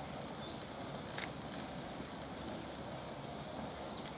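Steady outdoor background noise with faint, high, thin whistled calls: a short one about half a second in and a longer arching one near the end. A single sharp click comes just after a second in.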